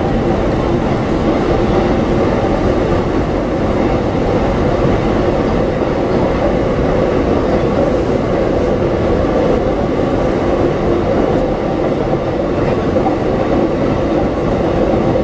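Keikyu electric train passing over the level crossing, a steady loud rumble of wheels on rails.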